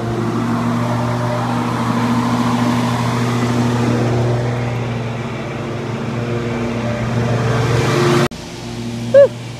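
A small petrol engine running steadily at constant speed, swelling and fading slightly, then dropping away suddenly a little after eight seconds in.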